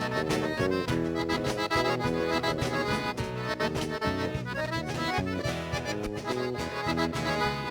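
Button accordion (gaita) taking an instrumental solo over the band's steady dance beat in a gaúcho vaneira.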